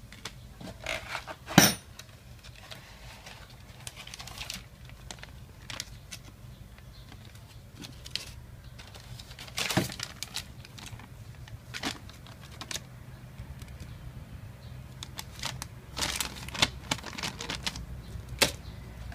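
Irregular light clicks and metallic clinks from tools and small engine parts being handled on a workbench, over a steady low hum. One sharp click about one and a half seconds in is the loudest, and more clinks come in clusters later on.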